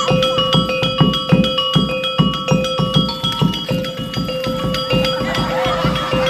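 Topeng monyet street-show music: a hand drum beaten in a steady rhythm of about two to three strokes a second, with quick ringing metallic percussion notes and a steady held ringing tone.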